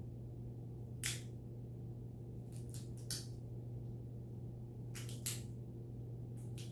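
Sharp crackles and snaps of peanut shells being cracked open by a monkey, coming in small clusters: once about a second in, a few around three seconds, a pair around five seconds and more near the end. A steady low hum underneath.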